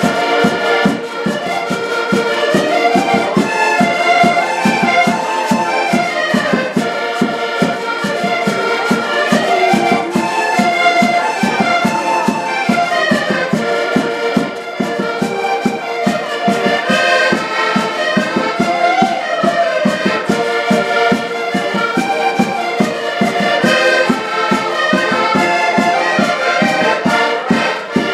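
Several accordions playing a lively traditional dance tune together, the melody carried over a steady bass-and-chord beat.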